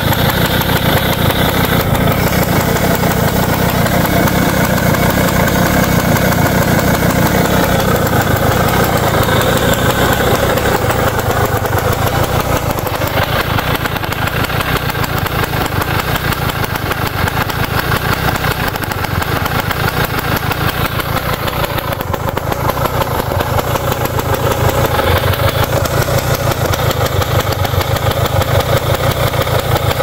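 Yamaha PW80's small single-cylinder two-stroke engine running steadily at idle, freshly rebuilt after a broken piston had locked it up.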